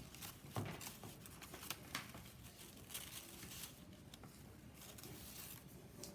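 Paper and cardboard being handled during a craft: light rustling and crinkling with scattered small taps and clicks.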